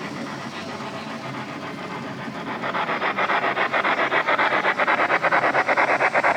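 Model train layout: a train running, then from about two and a half seconds in a fast, even chugging of about eight beats a second that grows louder as a train draws near.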